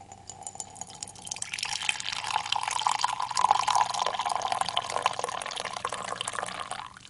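Coffee pouring in a thin stream into a ceramic mug, a splashing trickle. It swells louder about a second and a half in and stops just before the end.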